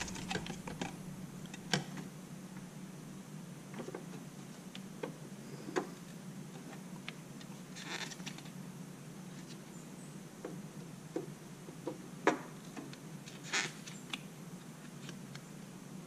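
Scattered light clicks and brief scrapes of hard plastic and circuit boards being handled: a plastic memory air shroud being lifted out and DDR4 server memory modules being set loosely into the motherboard's DIMM slots. A faint low steady hum runs underneath.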